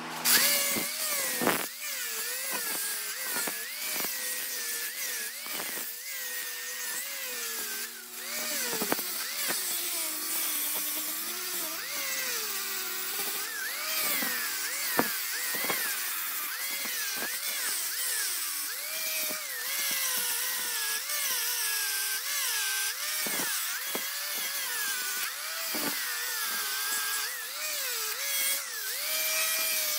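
Grinder with a 3M Cubitron abrasive disc grinding down the high spots of weld on a steel bore face, a continuous hiss of metal grinding under a motor whine whose pitch keeps dipping and rising. The weld is being taken flush so the face can be measured.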